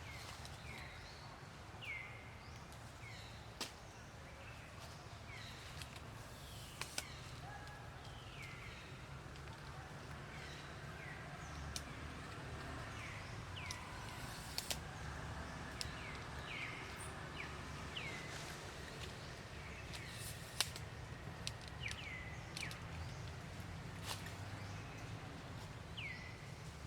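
Animal calls: short high chirps, each falling in pitch, coming every second or so, with scattered sharp clicks over a steady low rumble.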